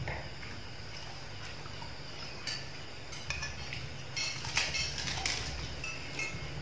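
Spoons clinking and scraping on plates as people eat: a scatter of light clinks, busiest in the second half, over a low steady hum.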